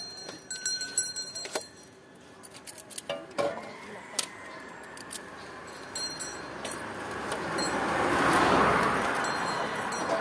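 Metal clinks and jangles from the sorbetero's stainless-steel ice cream cart as the scoop and canister lids are handled. A broad rushing noise swells to its loudest about eight seconds in, then eases.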